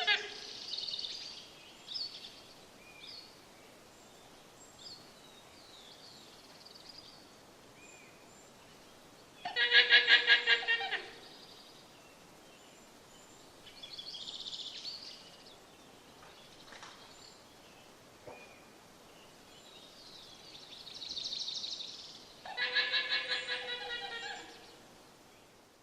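Guanaco calling: two loud, stuttering, high-pitched bleats of about eight pulses a second, one about ten seconds in lasting about a second and a half and one about twenty-three seconds in lasting about two seconds, typical of the guanaco's alarm call. Fainter short high calls and chirps come in between.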